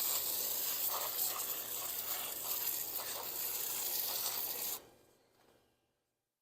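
Steady hiss of foaming coil cleaner being sprayed onto an air-conditioner coil, with a faint fizzing crackle. It stops abruptly about five seconds in.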